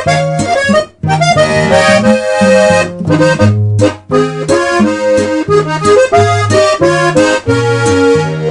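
Music: a melody over a bass line on a steady beat, with brief breaks about one and four seconds in.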